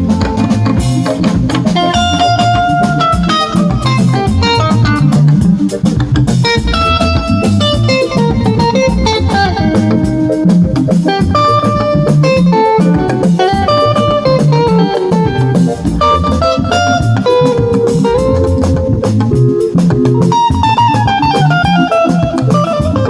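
A live band playing: a guitar picks melodic lines over bass guitar and a drum kit, sounded out at a sound check.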